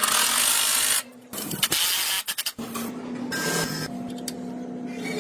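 Workshop work sounds: a loud rough noise for about the first second that cuts off sharply, then clicks, scraping and shorter noisy stretches over a faint low steady hum.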